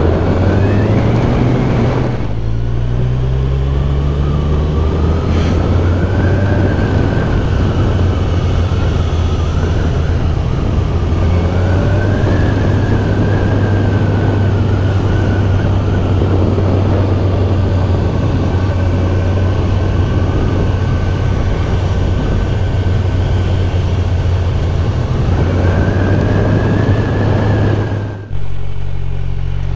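Kawasaki Z1000SX inline-four engine running as the motorcycle rides a winding descent, steady and loud, with a whine that rises and falls in pitch with engine speed. The sound breaks off abruptly near the end.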